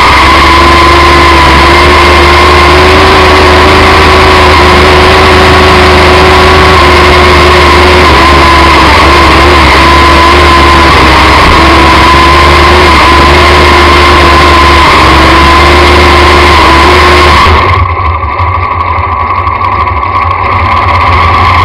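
A mini-class pulling tractor's racing engine runs loud and steady at high revs through a pull. About 17 seconds in, the sound drops and turns duller as the power comes off at the end of the run.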